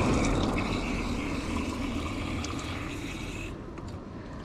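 Water pouring from a cyclist's bottle in a steady stream that slowly grows fainter, thinning out near the end.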